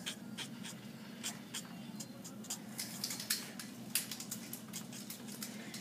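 Spectrum Noir alcohol-marker nib flicking across paper in many short, quick strokes, over a faint steady hum.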